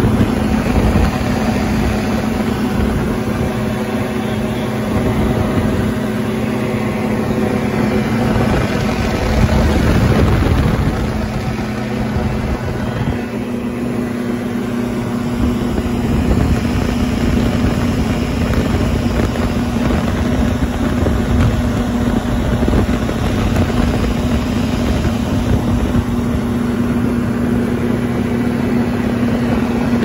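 Weight-shift microlight trike's engine running steadily at take-off power through the take-off roll and climb-out, a droning note with heavy wind noise on the open cockpit's microphone.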